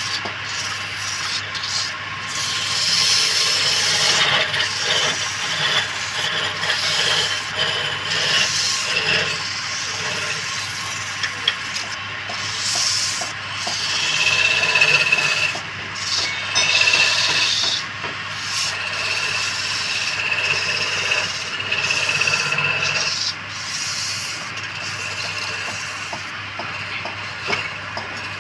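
Wood being worked on a lathe: a tool or abrasive rubbing and scraping against the spinning workpiece, rising and falling in strength over a steady low motor hum.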